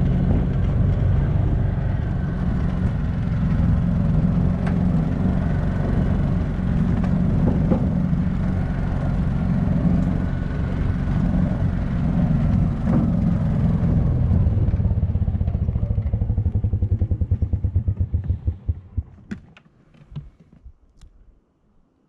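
Small utility vehicle's engine running steadily while driving on a dirt track. About two-thirds of the way in it slows, its separate firing pulses die away, and it shuts off, followed by a few clicks and knocks.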